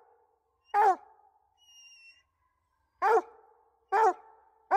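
Walker coonhound barking treed: four short, loud barks, the first a little under a second in, then a pause of about two seconds before three more in quick succession. It is the tree bark of a hound that has a squirrel up the tree.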